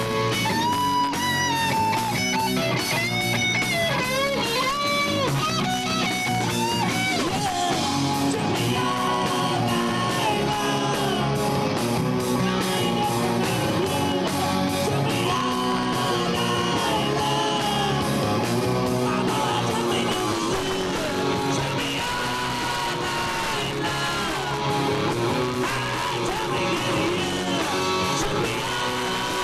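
Rock band playing live: electric guitar with bending lead lines over bass and drums.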